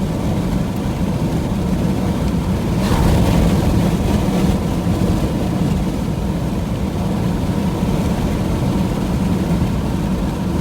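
Steady road and engine noise inside a moving vehicle, with a low drone throughout. About three seconds in, a brief louder whoosh rises and fades.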